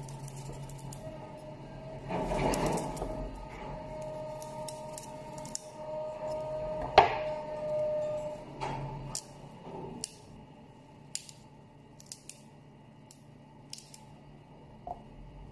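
Knife clicks and scrapes as a carrot is carved into petals over a wooden cutting board, with one sharp click about seven seconds in. A faint steady hum runs underneath for several seconds in the middle.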